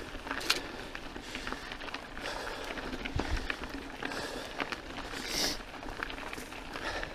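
Santa Cruz Megatower mountain bike riding down loose, rocky dirt singletrack: the knobby tyres crunch over gravel, with many small clicks and rattles from the bike. A brief louder rush comes about five and a half seconds in.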